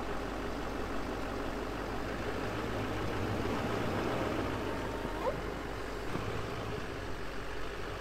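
Pickup truck engine running at low revs as the truck slowly reverses through snow, a steady low hum that swells slightly in the middle.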